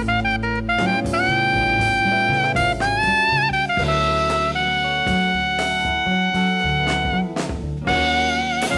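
1970s jazz quartet recording: a wind instrument plays the melody, holding and bending notes with vibrato, over bass and drums.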